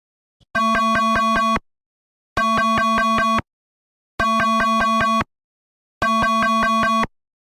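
Electronic emergency alert alarm sounding four times. Each blast lasts about a second, pulses rapidly at about five beats a second, and is followed by a short gap.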